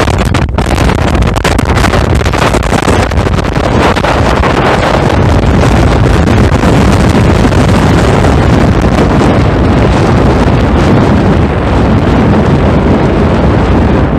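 Strong wind buffeting the microphone: a loud, steady rush, heaviest in the low end.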